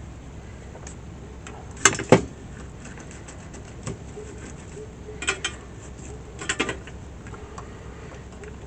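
Small clicks and clinks of soldering tools and wire being handled on a workbench: two sharp clicks about two seconds in, a soft tap, then two short clusters of clicks later on, over a faint steady hiss.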